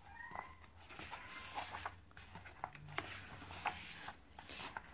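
Faint rustles and small clicks of a paper booklet's pages being handled and turned by hand.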